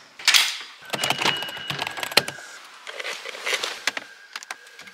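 Small hard objects being handled: a quick run of light clicks and jingles mixed with rustling, some of them briefly ringing.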